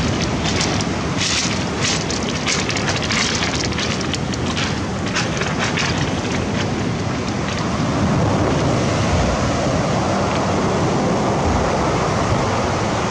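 Wind buffeting the microphone over the wash of sea surf, with short crackles through the first half.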